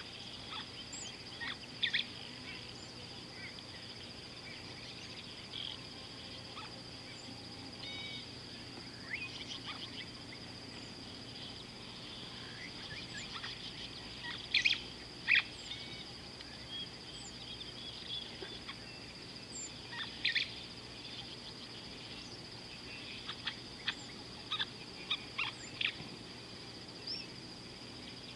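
Steady high insect drone, like crickets, with scattered short bird calls over it. The loudest calls come in a pair about halfway through, and a run of quick calls follows near the end.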